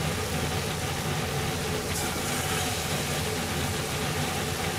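Sukiyaki simmering at a rolling boil in an iron pot on a gas stove: a steady bubbling with a low rumble.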